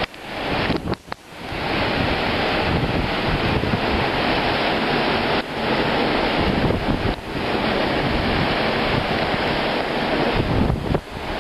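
Strong wind blowing across the microphone over a rough, whitecapped sea: a steady rushing noise of wind and waves, with brief dips about a second in and near the end.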